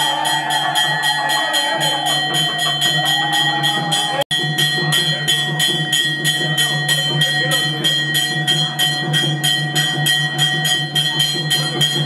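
Music with a fast, even beat of about four strokes a second under steady high ringing tones and a low drone, with a melody line over it in the first few seconds. The sound drops out for an instant about four seconds in.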